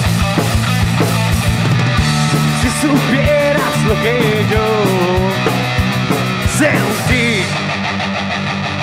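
Rock band playing live in an instrumental passage between sung verses: steady drum hits over bass and electric guitar, with a sliding lead melody through the middle.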